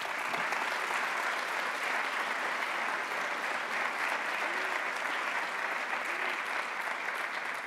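Audience applauding steadily, many hands clapping at once as a welcome.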